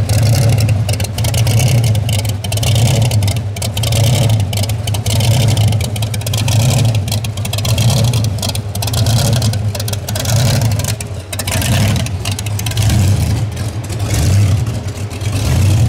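Supercharged 331 cubic-inch Hemi V8 with a Weiand 6-71 blower and dual Holley carburetors running at low speed with a deep rumble, its level swelling and falling every second or so.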